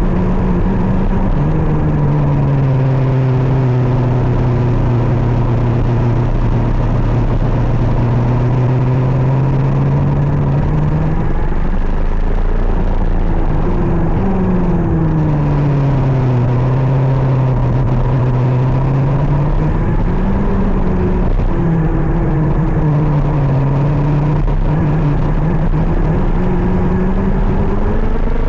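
KZ 125cc shifter kart's two-stroke engine running hard, its pitch repeatedly rising and falling as the revs change.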